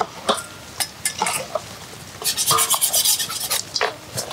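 A metal spoon stirring and scraping a dry mix of crushed peanuts and sliced shallots in a large stainless-steel bowl. Scattered scrapes and clinks come first, then a spell of fast, even scraping strokes about halfway through.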